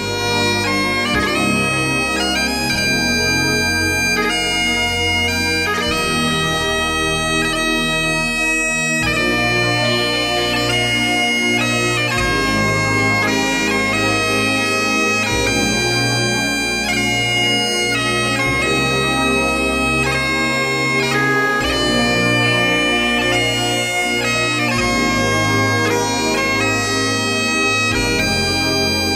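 Background music led by bagpipes playing a melody over low sustained accompaniment.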